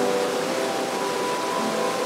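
Background music with slow, held notes over a steady hiss.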